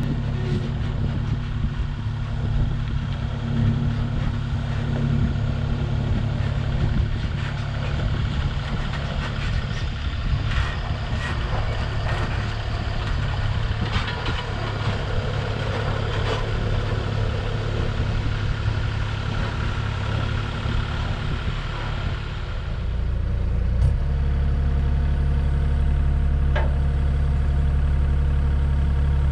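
Kubota KX040-4 mini excavator's diesel engine running while it handles a load on its forks, with a few short knocks partway through. About 23 seconds in the engine sound turns louder and steadier.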